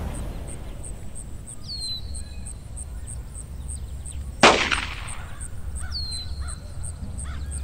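Outdoor ambience with a steady low rumble. A bird gives two short falling whistled calls, and a single sharp, loud bang rings out about halfway through and dies away quickly.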